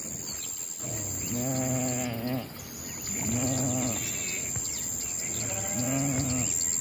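Sheep bleating three times, each bleat under a second long with a wavering pitch.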